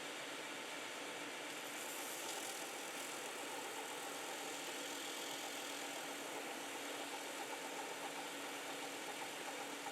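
A workshop power tool running steadily: an even whirring hiss with a faint hum.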